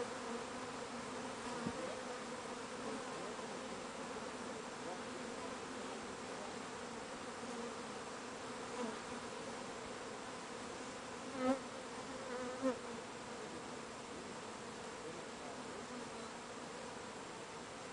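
Honeybee swarm buzzing with a steady hum as it settles into a wooden hive box. Twice, past the middle, a single bee buzzes loudly close by.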